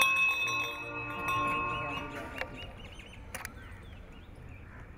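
A bell rings at once and its tone dies away over about two seconds: the dressage judge's bell that tells the rider to begin the test. Birds chirp throughout, and there is a sharp click about three and a half seconds in.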